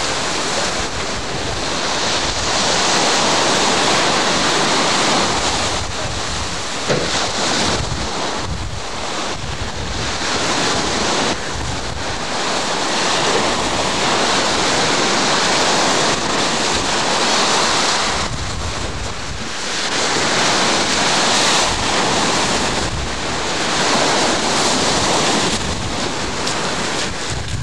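Sea surf breaking and washing ashore, with wind buffeting the microphone; the rush swells and eases every few seconds.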